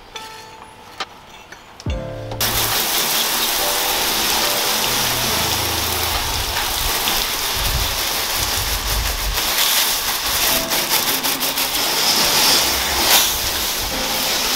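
Garden hose spraying water onto a boat's hull and deck: a steady hiss of spray and splashing that starts suddenly about two seconds in, after a short stretch of guitar music.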